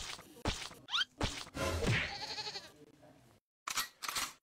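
A person's voice making several short breathy bursts and one wavering, bleat-like sound in the middle.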